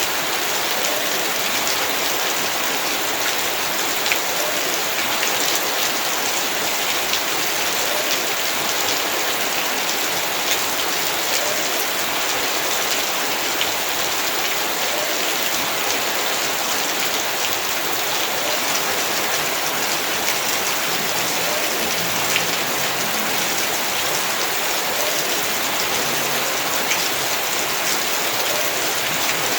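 Heavy rain falling steadily, a dense even wash of noise dotted with the hits of single drops striking surfaces.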